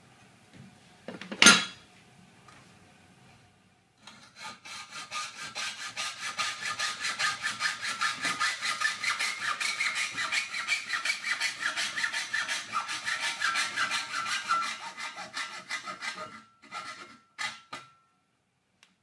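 Hacksaw with a 32-teeth-per-inch blade cutting thin steel trunking lid clamped in a vise, in quick, even back-and-forth strokes for about twelve seconds. A single sharp clack comes about a second and a half in, before the sawing starts, and the sawing ends with a few clicks and a brief ringing tone.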